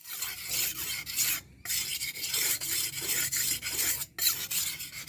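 A steel knife blade made from an old saw blade being sharpened by hand: quick back-and-forth rasping strokes of steel, with two short pauses.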